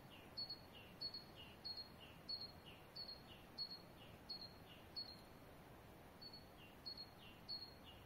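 A small bird calling over and over: a short high chirp with a slight downward slur roughly every two-thirds of a second, eight in a row, a pause about five seconds in, then a few more. Underneath is a faint steady hiss.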